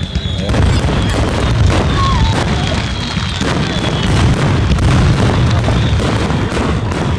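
Fireworks display going off in a dense, continuous barrage of booms and crackling bangs, with a faint high whistle slowly falling in pitch through the first half.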